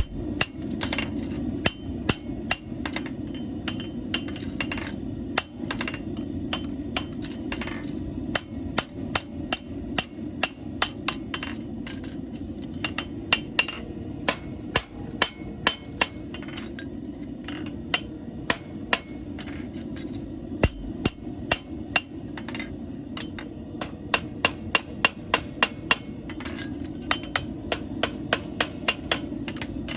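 A farrier's hammer striking a steel horseshoe in runs of sharp, ringing blows, a few a second, with short pauses between runs, over a steady low hum.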